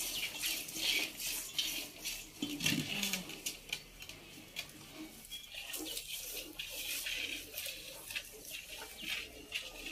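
Jets of milk squirting into a steel pot as a Sindhi cow is milked by hand, a rhythmic hiss at about three squirts a second. A short low call sounds about two and a half seconds in.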